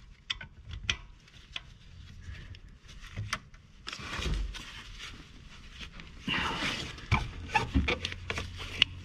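Scattered metal clicks, knocks and scrapes of a hand wrench working loose the 12 mm bolt that holds the serpentine belt tensioner, with two longer scraping stretches in the middle.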